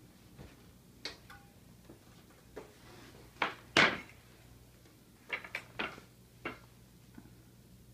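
Scattered knocks and clatter as a metal baking tray is taken out of the oven and set down on a counter, with the loudest knock about four seconds in and a quick run of clicks a second and a half later.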